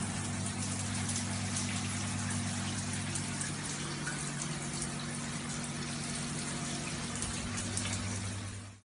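Shower running, a steady spray of water hissing onto the tray, the tiles and a sitting cat, with a steady low hum underneath. It cuts off just before the end.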